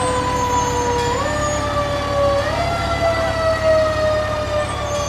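Fire truck siren sounding a single low tone that slowly sinks in pitch, steps up twice and sinks again.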